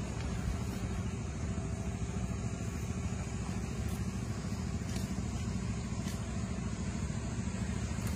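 Steady low rumble of wind buffeting the microphone on an open seashore, with the sea behind it.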